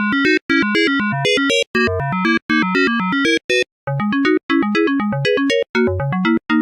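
Yamaha MA-series mobile-phone sound chip demo tune, played back as a synthesized ringtone-style piece: fast, short synth notes with a bouncing bass line under a higher melody, in short phrases with brief gaps between them.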